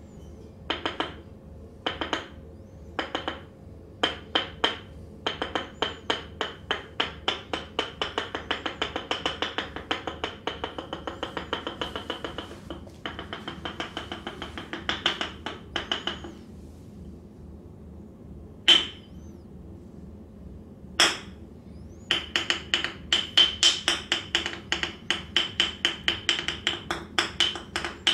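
Rapid percussive massage tapping. Quick sharp strikes come in short bursts at first, then in a steady run of about five a second. Two single louder strikes fall near the middle, and a fast run starts again near the end.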